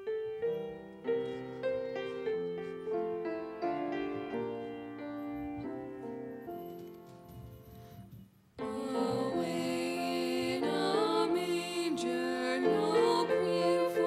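Grand piano plays a slow introduction of single notes. About eight and a half seconds in, women's voices come in singing, with the piano accompanying.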